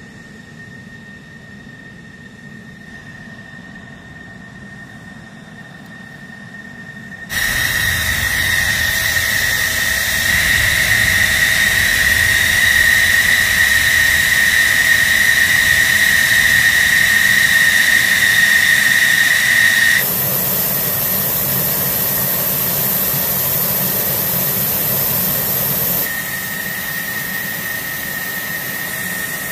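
F-16D fighter jet's engine running: a steady high-pitched whine over a rushing noise. It is faint at first and jumps abruptly much louder about seven seconds in, then drops back somewhat in two sudden steps later on.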